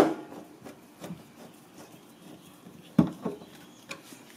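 Screwdriver and sheet-metal cover plate being handled while the plate is screwed back on: a sharp metallic knock at the start, another about three seconds in, and faint small clicks between.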